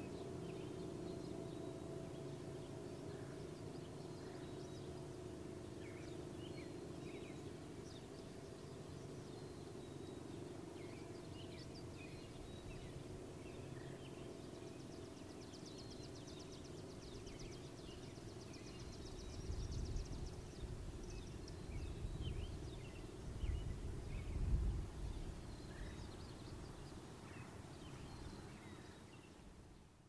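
An ACA P-50 outdoor warning siren's steady tone dying away over the first dozen seconds as its test activation ends, while birds chirp. A low rumble rises and falls around twenty seconds in.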